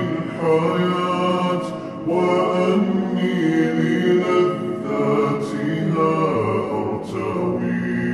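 A slowed-down nasheed with heavy reverb: layered male voices chant and hold long notes a cappella, with no instruments, between the sung lines.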